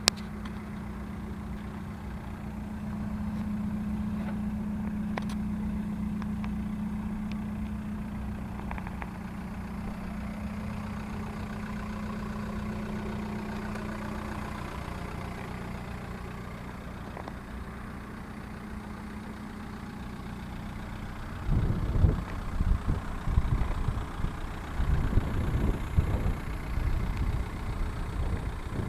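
Seat Leon 1M's 1.9 TDI ARL four-cylinder turbodiesel, exhausting through a straight pipe, idling steadily for about twenty seconds. It is then revved in a series of short, loud throttle blips near the end.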